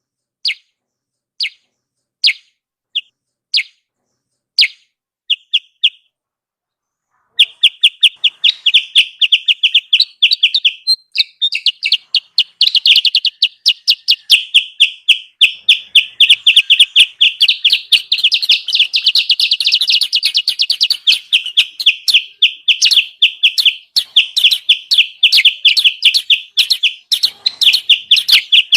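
Lure recording of kutilang sutra calls: short, high chirps spaced about a second apart, a brief pause, then about seven seconds in a fast, unbroken run of many high chirps a second.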